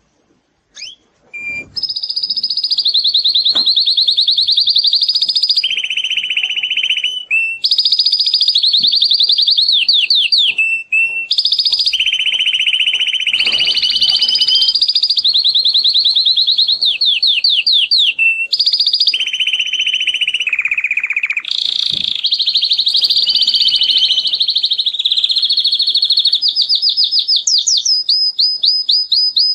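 Male domestic canary in breeding condition singing a long, loud song of rapid trills, each phrase a fast run of repeated notes that shifts pitch every second or two. The song starts about a second and a half in.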